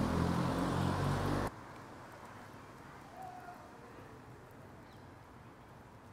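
A car passing close by, its engine hum and tyre noise loud, then cut off abruptly about a second and a half in. After that comes quiet street ambience with one faint, short chirp.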